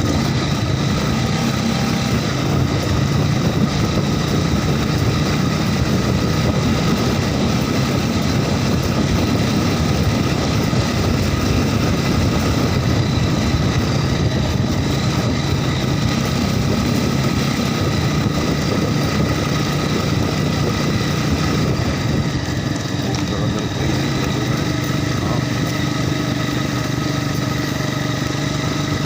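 Off-road vehicle's engine running steadily at an even speed, with no marked revving.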